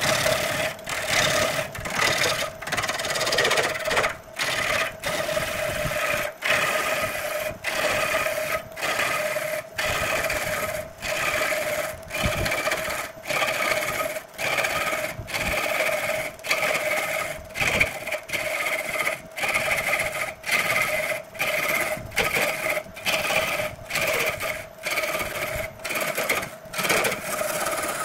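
Wood lathe running while a hand-held turning tool cuts into a spinning wooden cylinder: a steady motor hum under the scraping of the tool on the wood. The sound cuts out briefly and comes back about every three-quarters of a second.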